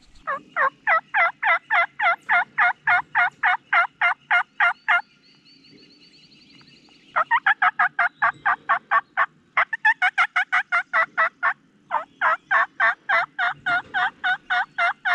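Turkey mouth call blown by the hunter: a long series of raspy hen yelps, about four a second, running into cutting, in four runs broken by short pauses.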